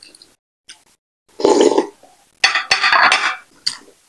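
Close-miked mouth sounds of drinking banga soup straight from a glass bowl: a short throaty sound about a second and a half in, then a longer, noisy slurp, with a couple of sharp clicks.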